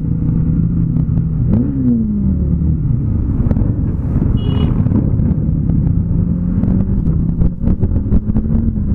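A motorcycle engine running on the move through traffic, heard from the rider's own bike, with a steady low drone. About a second and a half in the pitch rises and falls back as the throttle is blipped, and a short high beep sounds near the middle.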